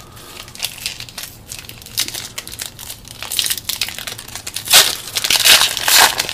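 Foil trading-card pack wrapper crinkling as it is handled and opened, a run of irregular rustles that are loudest in the second half.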